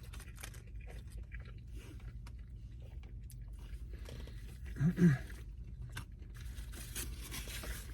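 A person chewing a big bite of a double smash-patty burger close to the microphone, with small wet clicks and crunches, and a brief hummed "mm" about five seconds in.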